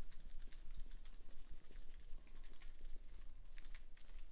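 Dry spice rub shaken from a shaker bottle onto a raw pork butt: a quick, irregular run of light ticks as the bottle rattles and the granules patter onto the meat.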